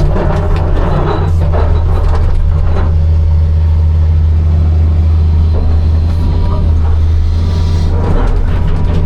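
Hitachi 260 excavator's diesel engine running steadily under load, with bursts of stone scraping and clattering in the first three seconds and again near the end.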